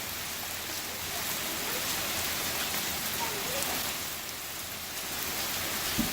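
Heavy rain pouring down steadily: a dense, even hiss of rain striking the ground and surfaces outside.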